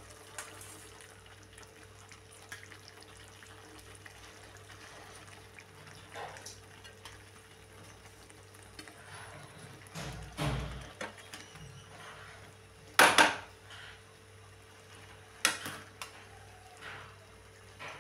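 Steel spoons and a perforated ladle scooping cooked rice from a steel colander into a nonstick kadai. Several short clinks and knocks of metal on metal are scattered throughout, the loudest about 13 seconds in, over a faint steady hum.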